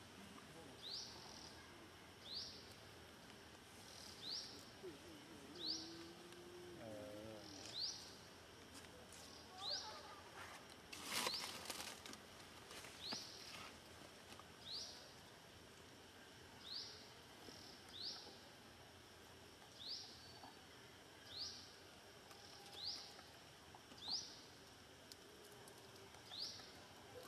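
Faint calls of an unseen wild animal: a short, high, rising chirp repeated about every second and a half. A brief burst of noise comes about eleven seconds in.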